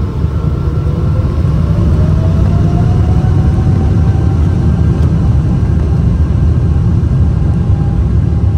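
Boeing 777 takeoff roll heard from a cabin window seat over the wing: a loud, steady rumble of the jet engines and runway that swells during the first couple of seconds, with a faint whine rising in pitch as the engines spool up.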